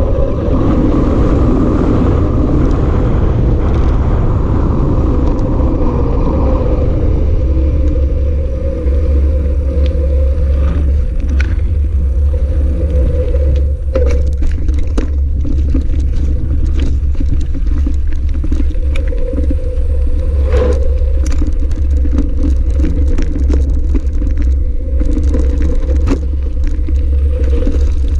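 Wind rumbling on the camera's microphone with tyre noise as an e-mountain bike rides along tarmac; about seven seconds in the tyre hiss thins as it leaves the road for a dirt and grass trail, and frequent clicks and rattles of the bike over rough ground come through.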